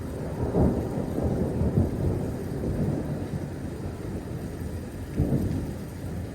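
Thunder rolling in a long low rumble over rain, swelling loud about half a second in and peaking again near the five-second mark.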